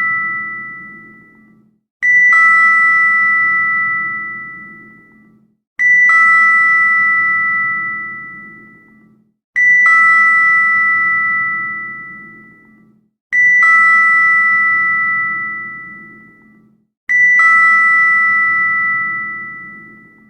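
Elevator arrival bell: a quick two-note ding, a high note and then a lower one, that rings out and fades. It sounds five times, about every four seconds, while the ring of the one before is still dying away.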